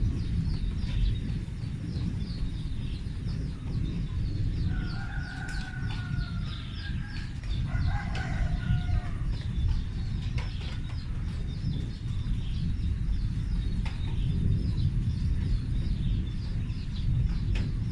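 A continuous low rumble like distant thunder, going on without a break, its source unknown. Rapid high chirping repeats throughout, and a rooster crows twice near the middle.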